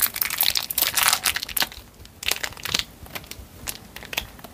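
Crinkling and crumpling of an air-dry clay packet's wrapper handled in the hands: a dense run of crackles over the first two seconds, thinning out after.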